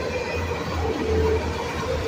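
Freight train of autorack car carriers rolling past at close range: a steady rumble of steel wheels on the rails.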